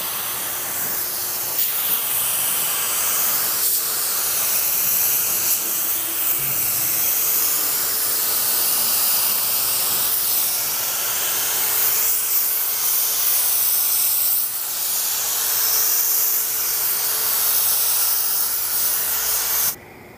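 Gravity-feed LVLP spray gun hissing steadily as it sprays clear coat onto a car door, the air held on through the passes with a brief dip about two-thirds of the way through, then cut off sharply as the trigger is released near the end.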